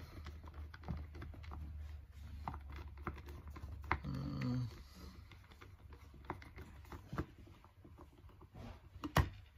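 Scattered small clicks and taps from hands and small tools working on a hair trimmer's plastic housing, with one sharp click near the end.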